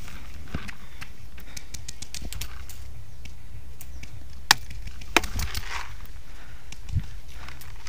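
Paintball markers firing: scattered sharp pops, with a quick string of shots about two seconds in and two louder cracks a little past the middle, over a steady low rumble.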